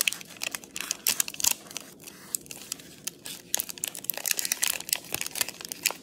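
A Feastables chocolate bar's wrapper being torn open by hand: the paper outer wrapper and the foil inside crinkling and tearing in quick, irregular crackles.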